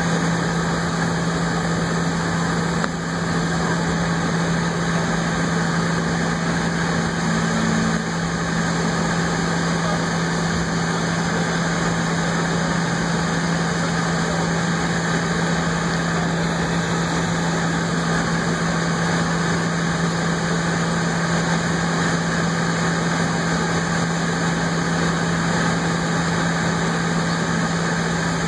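Steady cabin noise of a jet airliner taxiing with its engines at idle: an even rushing hiss over a constant low hum.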